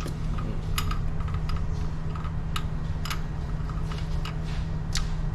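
Scattered, irregular clicks and taps of hand tools working on fuel line fittings, over a steady low hum.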